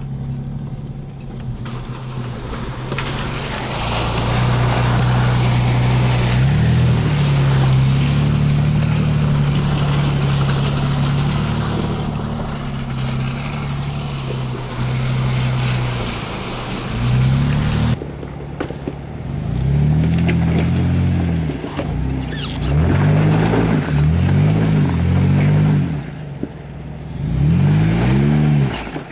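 Jeep Wrangler JK engine pulling steadily while it drives up a flooded trail, with water splashing around the tyres. After a cut, a Jeep Wrangler Rubicon's engine revs up and falls back about five times as it crawls over rocks.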